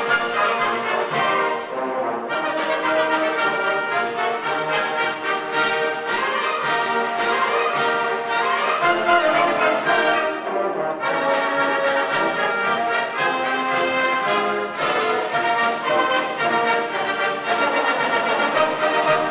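A school concert band playing, its brass and woodwinds sounding sustained chords together. There are short breaks between phrases about two seconds in, around ten seconds and near fifteen seconds.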